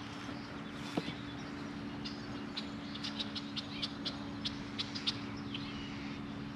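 A bird calling outdoors: a quick series of short, high chirps, about four a second, lasting a few seconds.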